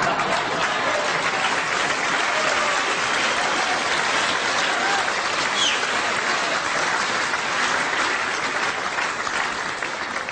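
Audience applauding, with some laughter mixed in. The applause eases off near the end.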